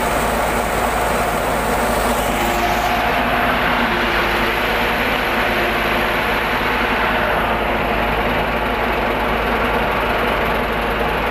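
Heavy truck engine running steadily, a loud continuous mechanical rumble with no change in pace.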